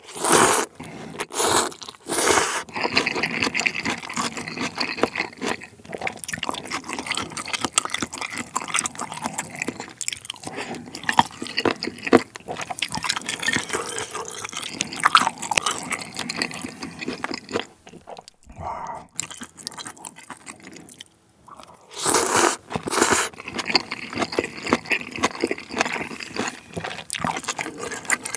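Close-miked eating of jjamppong noodles: loud slurps of the noodles near the start and again twice about three-quarters of the way through, between them steady wet chewing and mouth clicks.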